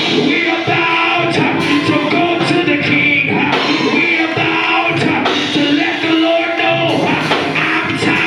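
Live gospel music at a church praise break: a band with drums or percussion playing under voices singing.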